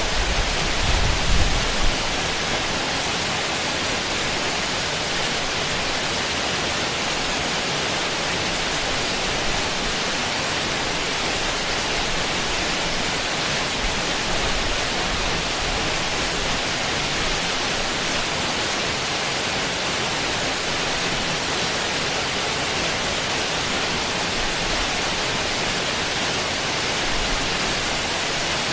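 A steady, even rushing noise with no distinct events, with a few low bumps in the first two seconds.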